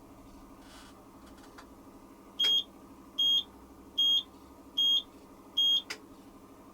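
Hoover Quattro System washing machine's electronic beeper sounding five short high beeps, evenly spaced, over the machine's low steady hum: the signal that the wash programme has finished.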